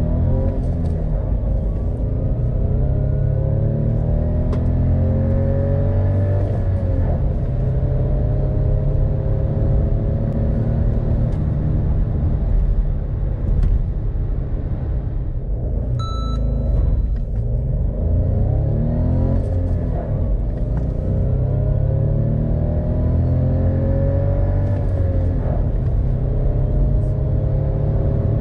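A Renault Clio V's 1.0 TCe three-cylinder turbo petrol engine, heard from inside the cabin under full-throttle acceleration. The engine note climbs through each gear and drops back at every upshift of the manual gearbox. About fifteen seconds in the sound dips briefly and a short electronic beep sounds, then a second flat-out run starts and climbs through the gears again.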